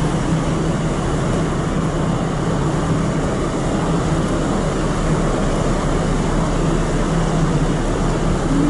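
Large passenger ferry underway at sea: a steady low hum from its engines under a constant rush of wind and sea noise.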